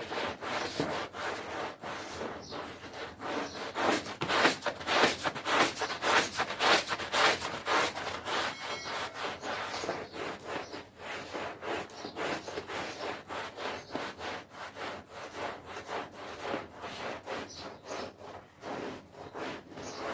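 Rhythmic scrubbing strokes on a carpet, a few strokes a second, louder for a few seconds near the start.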